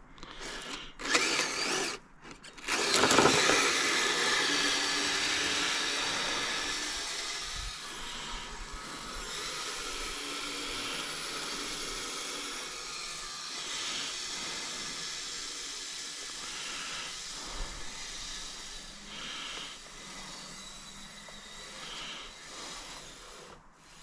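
Kyosho Blizzard RC snowcat's electric motor and gear drive whining steadily as it tracks away over the snow, loudest about three seconds in and gradually growing fainter as it gets farther off. A few short knocks come first.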